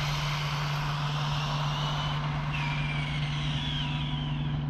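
Stretched Arrma Typhon RC car running on 6S, its brushless motor and drivetrain whining in high glides that rise and fall, over a steady low hum.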